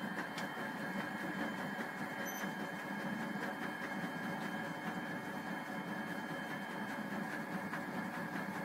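Steady machine hum and whir with a faint high whine that holds level throughout.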